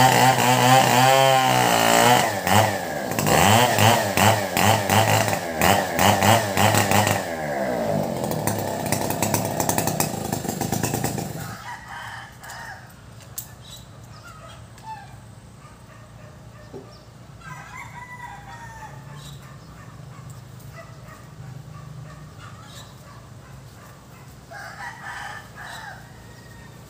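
A chainsaw runs and cuts into a coconut palm trunk, its engine pitch rising and falling as the revs change, and it stops suddenly about 11 seconds in. After that, chickens call here and there, and a rooster crows near the end.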